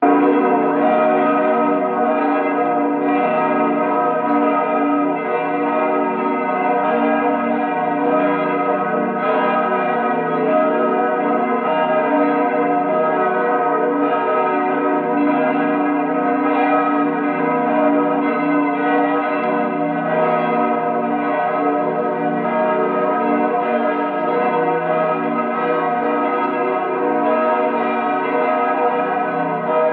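Cathedral church bells ringing continuously, the strokes following so closely that their tones overlap without a break.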